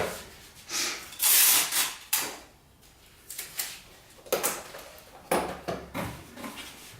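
Cardboard packaging and bulb boxes being handled: a series of rustles, scrapes and light knocks, with a longer bright rasp about a second in, as of tape being pulled off a roll.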